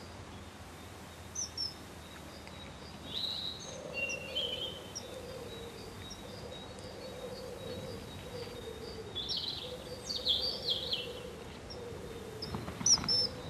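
Short, high bird calls and chirps scattered over a faint, low, steady hum, with a louder burst of calls near the end.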